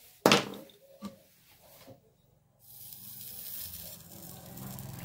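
A sharp knock, then a smaller one, as parts are handled on the bench; from about halfway, a steady hiss of soldering, the hot iron sizzling on flux as a wire is tinned. A low hum comes in near the end.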